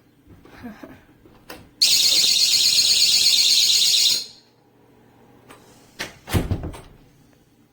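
GE personal security window/door alarm's siren going off about two seconds in: a loud, shrill, rapidly warbling tone that lasts about two and a half seconds, then cuts off. A few clicks come before it, and a couple of knocks come near the end.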